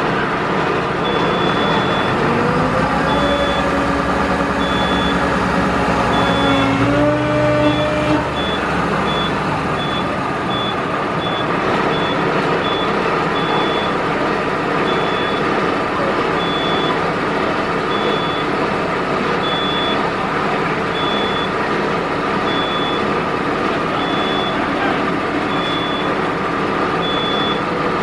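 Rosenbauer aerial ladder platform's hydraulic stabiliser jacks being lowered, with a warning beep repeating about once a second. The engine or pump note rises over the first few seconds, steps up and then stops about eight seconds in, and the beeps come faster for a few seconds around then. A steady hum continues under the beeps afterwards.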